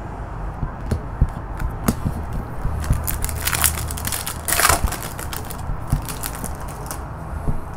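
Foil-lined trading-card pack being torn open, with two crinkling rips of the wrapper about three and four and a half seconds in, amid light clicks and rustles of cards being handled.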